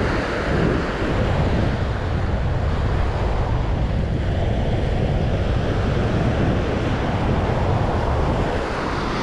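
Surf breaking and washing onto a sandy beach, a steady rush of waves, with wind buffeting the microphone as a low rumble.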